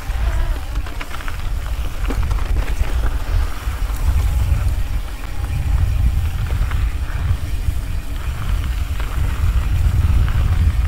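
Wind buffeting the microphone of a mountain bike rider's camera during a fast descent, a heavy unsteady rumble, with scattered clicks and rattles from the bike running over the trail.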